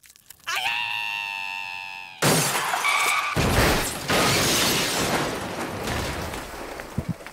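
Cartoon fall-and-crash sound effect: a held, pitched tone with a short rise at its start, then about two seconds in a loud crash with shattering and breaking that rattles on for several seconds, marking a man's fall from an office window. A few short thumps begin near the end.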